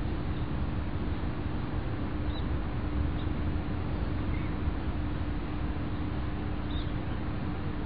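Steady low outdoor background noise with a constant hum, broken by a few faint, short high chirps.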